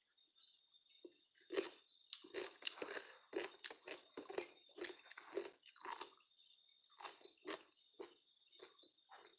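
A person chewing crisp food close to the microphone: irregular crunching bites, one or two a second, beginning a little over a second in and thinning out near the end.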